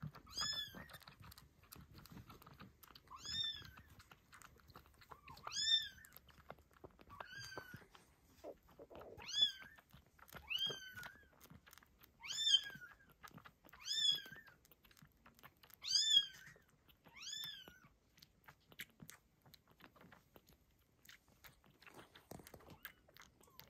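A newborn kitten mewing about a dozen times, short high calls that rise and fall, a second or two apart, while it nurses from a pet nursing bottle. The mewing stops about three-quarters of the way through. Soft clicking sounds of suckling continue underneath.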